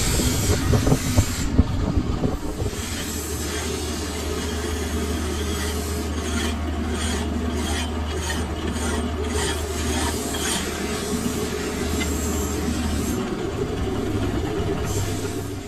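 A metal lathe running with a steady low hum while a hand file is held against the spinning steel workpiece, rasping in a run of even strokes through the middle. The scraping is louder and rougher at the start.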